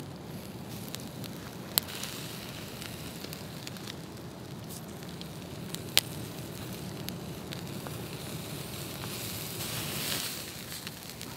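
Spice-rubbed steak sizzling on a metal grill grate over a wood fire, with the embers crackling and two sharp pops, about two and six seconds in. The hiss swells briefly near the end.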